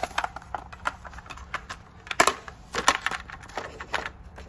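Plastic clicks and rattles of a robot vacuum cleaner's dustbin being taken out and opened, with the rice it picked up rattling inside. The loudest clicks come about two and three seconds in.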